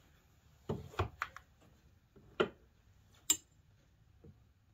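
Handling noise: half a dozen short, sharp clicks and knocks, the two loudest about two and a half and three and a half seconds in, as a cordless drill and small parts are handled against an ATV's steel rear rack. No drill running.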